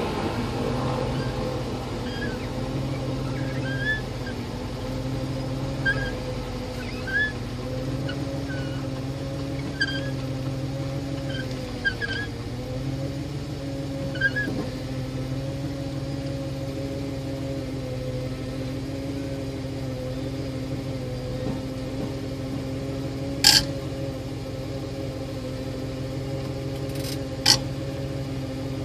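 Engine idling steadily at a low, even pitch, with faint short squeaks now and then and two sharp knocks near the end.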